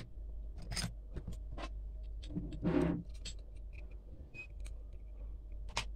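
Small clicks and light rustles of hands handling a circuit board and its plastic housing, with a softer rush about halfway through and a sharper click near the end, over a steady low hum.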